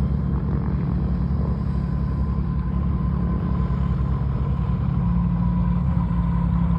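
An engine running steadily: a low rumble with a faint, constant whine above it.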